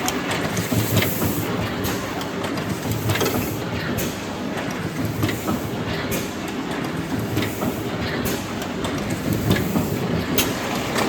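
Heidelberg SB cylinder die-cutting and creasing machine running, a steady rhythmic mechanical clatter with repeated sharp clicks.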